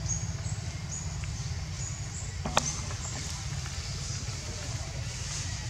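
Outdoor ambience: a steady low rumble, a short high chirp repeating about every half second, and one sharp click about halfway through.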